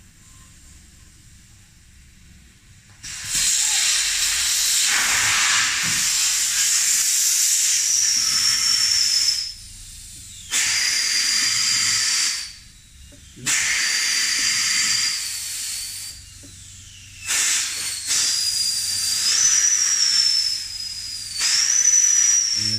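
Compressed air from a shop air hose hissing into a vintage Bedford truck's air brake booster under test, in five long blasts with short pauses between them. The first starts about three seconds in, and a high whistle rides on several of the blasts.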